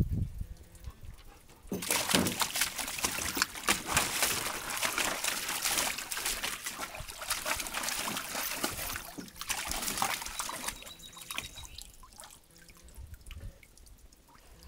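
A dog splashing in water in a shallow plastic kiddie pool: water sloshing and splattering from about two seconds in, dying down to quiet lapping after about ten seconds.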